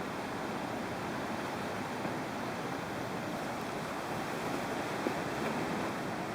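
Steady rush of the partly frozen Athabasca Falls, its water still running under the ice.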